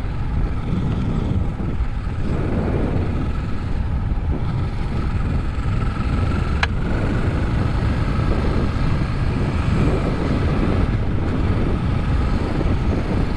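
Suzuki DR650's single-cylinder four-stroke engine running steadily while riding, a dense low rumble with a faint steady whine above it. One sharp click about halfway through.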